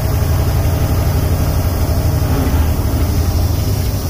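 Semi truck's diesel engine running steadily, heard from inside the cab while the truck is being driven.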